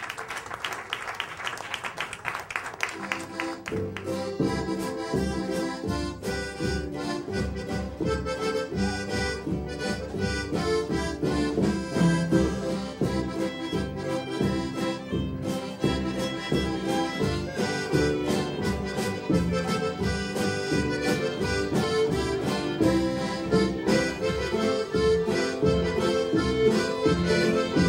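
Audience clapping, then about four seconds in a waila ("chicken scratch") band starts a tune with a steady beat, led by two accordions over fiddle, upright bass, guitar and drums.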